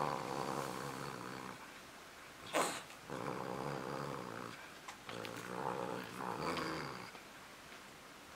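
Cat growling with a toy clamped in its teeth, three long growls, with a short sharp noise about two and a half seconds in.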